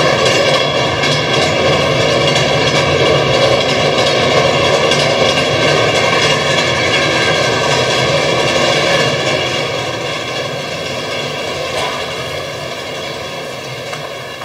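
Loud recorded vehicle sound effect, a steady mechanical rushing noise played over a theatre's loudspeakers, fading out over the last few seconds.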